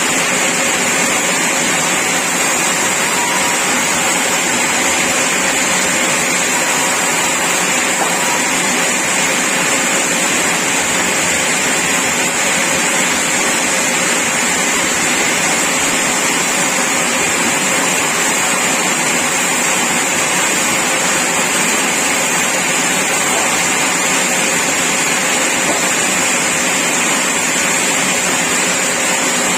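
Sawmill saw running steadily: a loud, unchanging mechanical noise with a high hiss.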